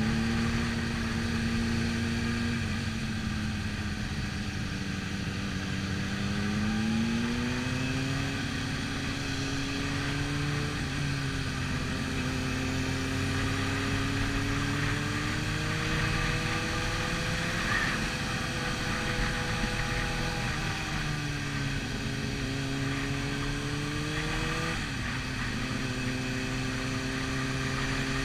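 Sport motorcycle engine heard from on board, running at a moderate cruise. Its pitch rises and falls slowly with the throttle, with a couple of abrupt steps as gears change, over steady wind and road rush.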